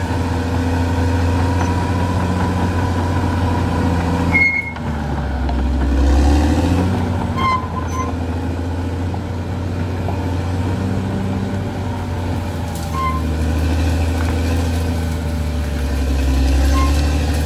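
Caterpillar D6R XL bulldozer's diesel engine running steadily under shifting load. A few brief high squeaks come through now and then, and the engine sound dips briefly about four and a half seconds in.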